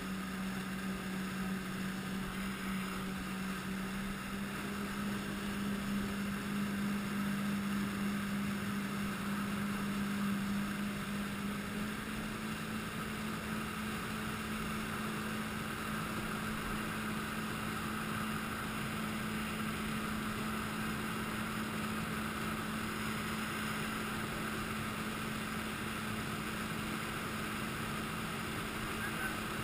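Jet ski engine running steadily at towing speed, with the rush and spray of its jet wash. The engine note steps up slightly about twelve seconds in.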